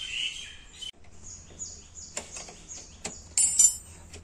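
Metal tools clinking on a motorcycle's rear wheel: two sharp clinks, then a brief ringing metallic clatter about three and a half seconds in, the loudest sound. Birds chirp throughout with short high repeated calls.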